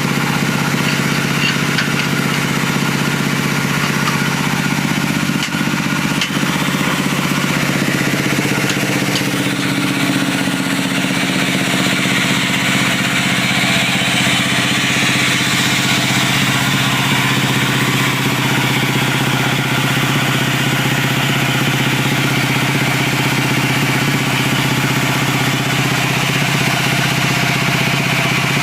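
Diesel engine driving a timber sawmill saw, running steadily under load while wood is sawn, with a hiss of cutting over the engine note that shifts about ten seconds in.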